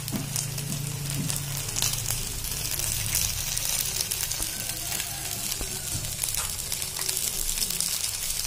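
Honey-glazed chicken pieces sizzling in olive oil on a nonstick grill pan: a steady crackle of spitting fat, with a low steady hum underneath.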